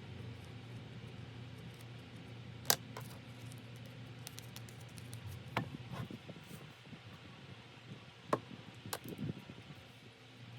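A few scattered sharp clicks and light taps from craft supplies being handled on a work table, the loudest about three seconds in, over a steady low room hum.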